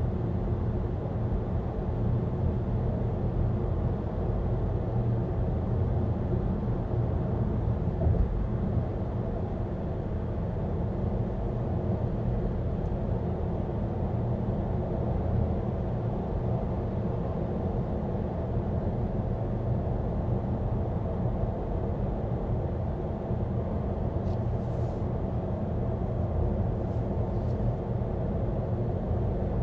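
Volvo EX30 electric car driving, its road and tyre noise a steady low rumble with no engine note.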